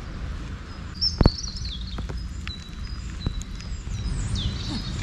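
Low rumble of wind on the microphone, with birds chirping high over it, around a second in and again near the end. A single sharp thump about a second in is the loudest sound.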